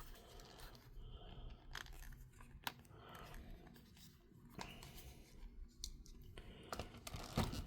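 Plastic action figure being handled and posed, its joints bent: a few faint, scattered clicks over soft rubbing and handling noise.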